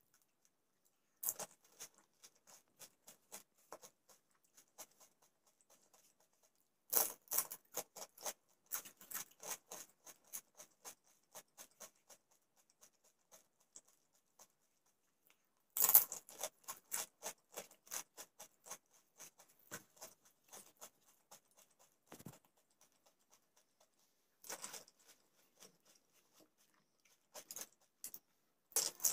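Close-up crunching of crisp golgappa (pani puri) shells being bitten and chewed, in bursts of rapid crackles. The loudest bursts start about 7 and 16 seconds in, with scattered quieter crunches between.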